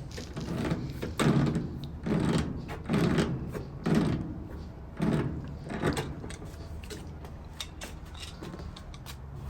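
Dull knocks and scrapes of hands and tools working on the washer, about once a second for the first six seconds, then only a low steady hum.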